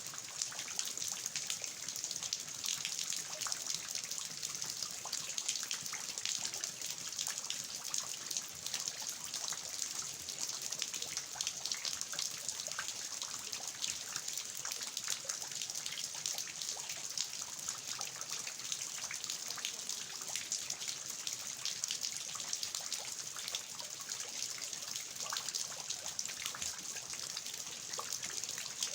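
Steady rain falling on a garden, with water dripping and trickling off the roof eaves: a dense patter of many small drop impacts over a steady hiss.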